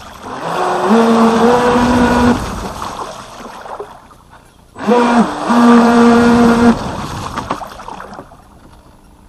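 Radio-controlled jet ski's 3660 brushless inrunner motor and KMB Jet 28 jet pump whining under throttle, with water rushing. There are two bursts of throttle, each a steady two-note whine that steps up in pitch. Between the bursts and near the end the sound falls away as the craft coasts.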